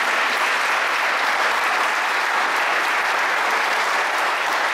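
Audience applauding, a steady dense clapping that holds at an even level throughout.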